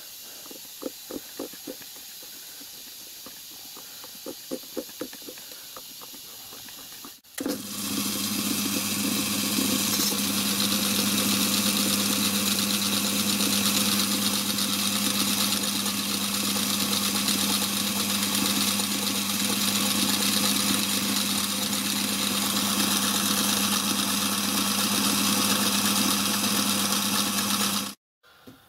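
Light clicks as a three-jaw chuck on a micro lathe is turned and handled by hand. The micro lathe then runs steadily under power with its chuck spinning, giving a steady hum with a hiss over it. The sound cuts off near the end.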